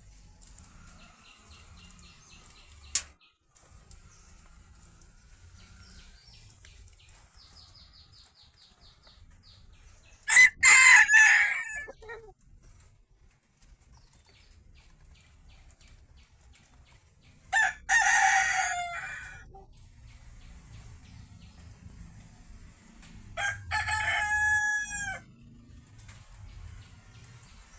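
Bantam roosters crowing: three crows of about two seconds each, about ten, seventeen and twenty-three seconds in, the first the loudest. A single sharp click about three seconds in.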